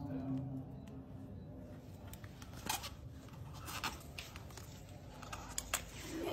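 Knife blade scraping and cutting along the seam of a durian's thick, spiky husk, with a few sharp cracks as the husk splits open.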